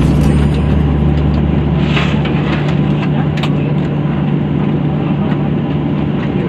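Steady cabin noise inside a Boeing 737-800 airliner: the jet engines' even rumble with a constant low hum, and a brief hiss about two seconds in.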